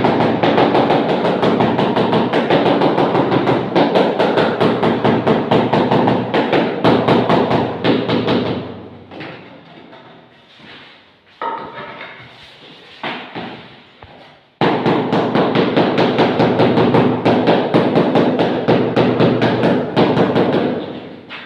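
Rapid repeated blows of a mallet tapping a marble floor tile down into its mortar bed, about five a second, in two long runs with a quieter pause of a few scattered knocks in between.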